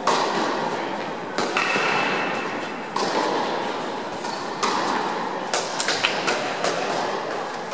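Tennis balls being struck about every second and a half, each hit echoing and fading slowly in a large indoor tennis hall, with a few sharper taps later on.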